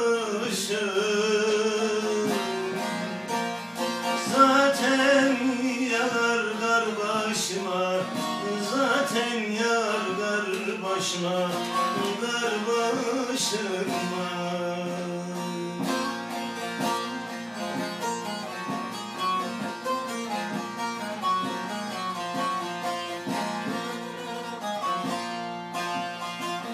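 Turkish folk song: a voice singing over a plucked string instrument, with the instrument carrying on with fewer vocal lines in the second half.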